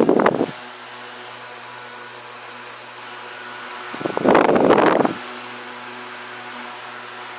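General Electric Vortalex 30 cm electric fan running steadily, a motor hum under the rush of air. Two loud bursts of rushing noise break in, one at the start and one about four seconds in.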